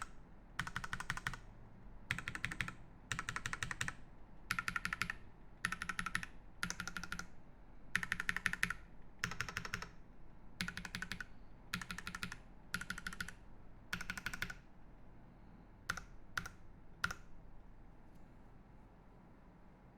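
Typing on a Space65 CV mechanical keyboard with lubed Drop Holy Panda tactile switches, a carbon-fibre plate and GMK keycaps. The keystrokes come in quick word-length bursts about once a second, then thin to three single strokes and stop a few seconds before the end.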